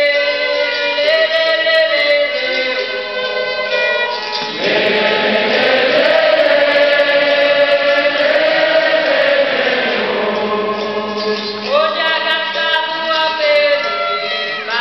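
Violin played together with singing. From about four and a half seconds in until about ten seconds, many voices sing together in a fuller swell, then it thins back to the violin and fewer voices.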